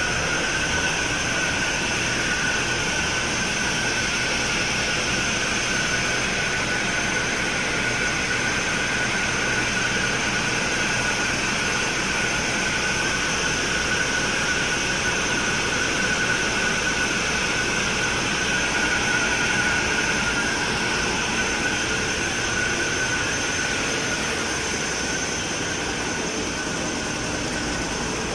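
Steady engine-room din of a Hanshin 1000 hp marine diesel main engine running, with a steady high-pitched whine on top.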